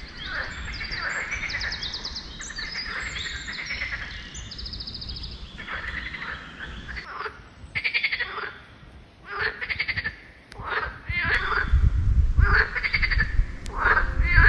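A chorus of frogs calling at a pond: many overlapping, rapidly pulsed croaking calls, running together at first and coming as separate bouts in the second half, with a low rumble near the end.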